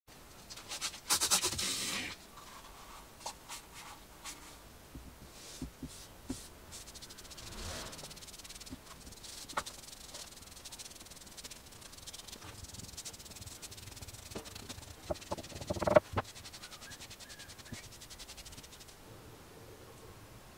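A utility knife slicing through a sponge near the start, then the sponge rubbing wood stain onto a plywood board as a soft, fine rubbing through most of the rest. One sharp knock comes about 16 seconds in.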